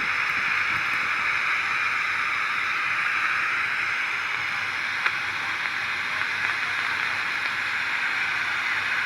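Radio receiver giving out steady static hiss, with one sharp click about five seconds in.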